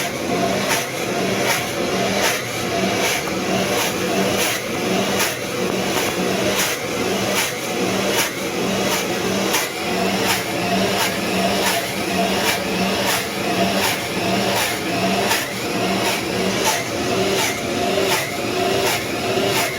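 A 1930s Cinderella clothes washer's universal AC-DC motor running under normal load, its pumping action beating in an even rhythm of roughly four strokes every three seconds. This is its normal sound with no suds lock: the water is not overloaded with soap, so the motor is not over-speeding.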